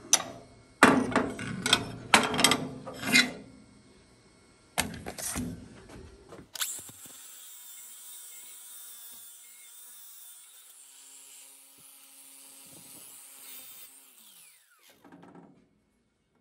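Several loud knocks and clanks of metal parts being handled on a steel welding table, then an angle grinder with an abrasive flap disc runs steadily for about eight seconds, grinding paint off steel, and spins down near the end.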